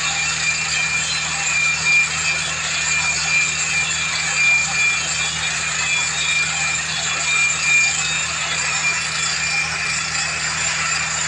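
Water-well drilling machine running steadily: a constant engine hum under broad mechanical noise, with a thin high tone that comes and goes.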